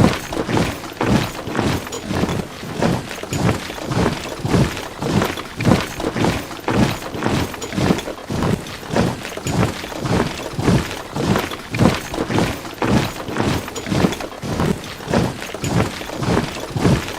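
Footsteps of many soldiers marching in step, an even tramp of about two to three footfalls a second at a steady level.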